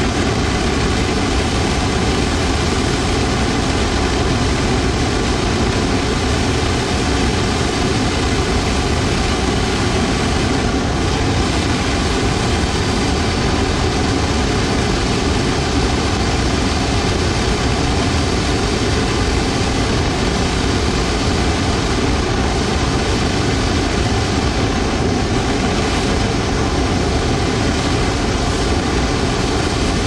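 Blower-powered furnace burner firing a long open flame: a loud, steady rushing roar of blower air and combustion that does not let up.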